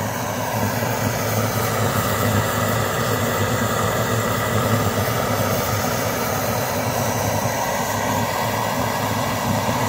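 Steady roar of a 1920s Primus kerosene pressure stove's burner, with steak sizzling in the pan on top. The sound holds even throughout.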